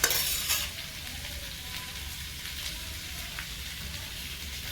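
Vegetables sizzling in hot oil in a pan, with a louder burst of sizzle for about the first half-second, then a steady sizzle.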